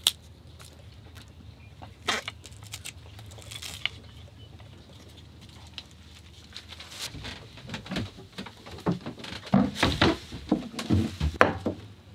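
Handling noises as a stick is taped up and passed into a locker: scattered clicks and rustles that grow busier and louder over the last few seconds. A low steady hum underneath stops about halfway through.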